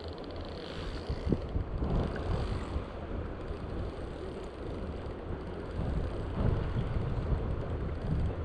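Steady rushing of a mountain stream, with low uneven rumbling of wind on the microphone.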